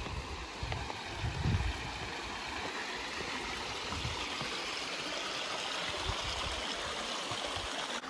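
Steady rush of flowing water that grows a little brighter and louder after the first few seconds, with a few low thuds near the start.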